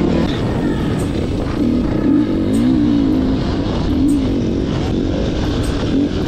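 Enduro dirt bike engine running under load, its pitch rising and falling again and again with the throttle, over steady rumble and wind noise.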